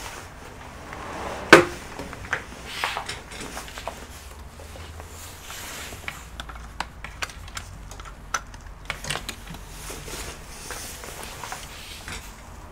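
Handling noises on a workbench: one sharp knock about a second and a half in, then scattered light clicks and taps as the aluminium-cased power supply is shifted about on the mat.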